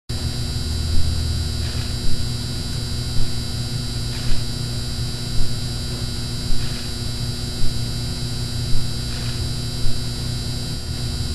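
Ambient electronic background track: a steady droning hum with a soft low beat about once a second.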